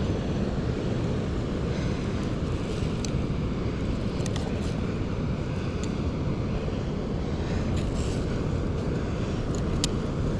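Steady low rumble of wind buffeting the microphone over surf noise on the beach, with a few faint ticks.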